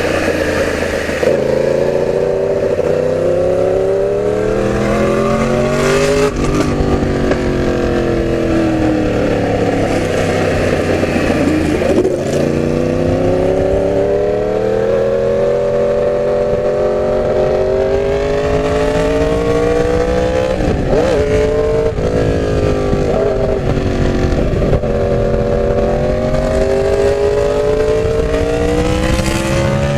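Yamaha R1's inline-four engine running under way, its pitch climbing and falling repeatedly as the bike accelerates and eases off. There are a few sudden drops in pitch at gear changes, about six, twelve and twenty-one seconds in.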